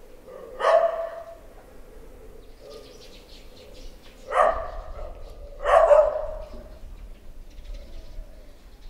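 A dog barking three times, single barks a few seconds apart, the middle two closer together.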